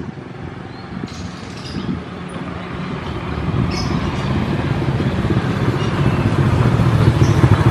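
A vehicle engine rumbling with rapid low pulses, growing steadily louder over the last few seconds as it comes closer.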